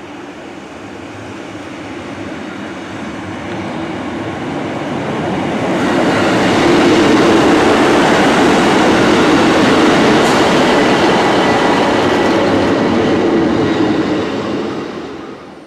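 Class 150 Sprinter diesel multiple unit approaching and passing through the station. The engine and wheel noise grows steadily louder over about six seconds, stays loud while the carriages go by, and falls away near the end.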